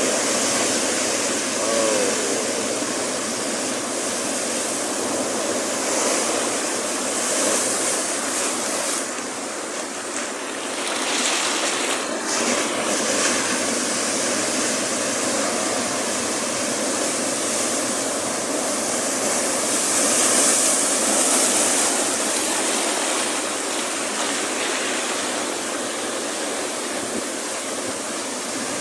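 Big ocean waves breaking and washing in foam over a low rock shelf at the shoreline: a continuous rush of surf that swells as each set breaks, loudest about twenty seconds in.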